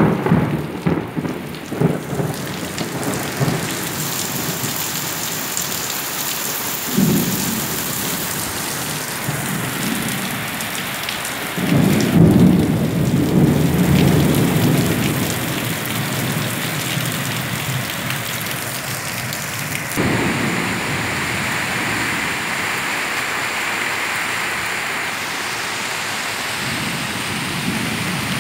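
Heavy rain pouring down steadily, with thunder rumbling: a rumble right at the start, another about a quarter of the way in, and the loudest and longest near the middle.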